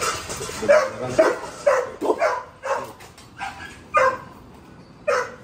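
Large dog barking in a quick run of about nine short, sharp barks, roughly two a second, eager for a bowl of raw chicken held just above it.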